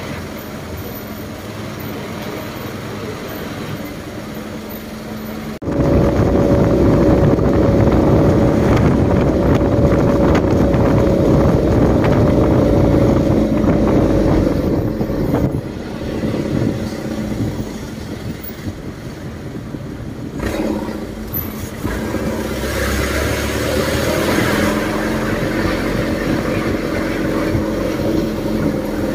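A heavy vehicle engine running steadily, then suddenly running much louder about six seconds in and holding there for about ten seconds before easing off, then rising again near the end.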